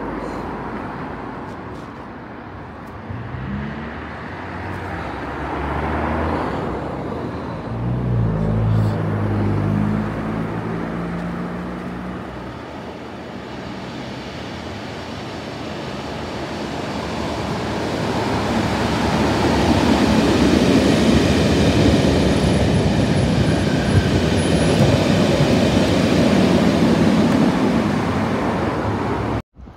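A locomotive-hauled test train approaching along the line, first heard as an engine drone whose pitch rises briefly, then as a growing rumble of the train passing close by. The sound cuts off suddenly near the end.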